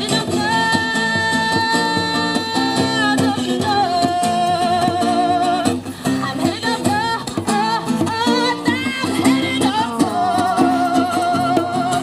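Music: guitar accompaniment with a singing voice holding several long notes with vibrato.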